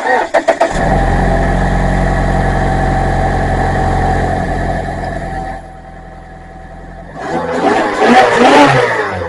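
Mazda CX-5 engine cranked by the starter and catching in under a second, then running at a steady fast idle that drops to a quieter idle about halfway through. Near the end, a louder surge with a wavering pitch lasts about two seconds. The engine is running on oil about 25,000 miles overdue for a change, with Seafoam just added to the crankcase.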